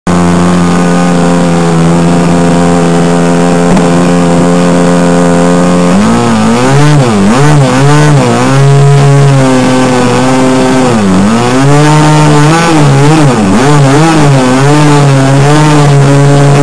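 Hobbico NexStar trainer's model airplane engine, heard close up from a camera on the plane. It runs at a steady pitch for about six seconds, then the throttle is worked up and down again and again, so the pitch swoops up and down.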